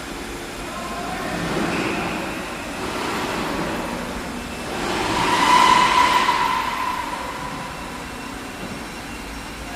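Factory machinery running, swelling twice in level, with a whine loudest about six seconds in.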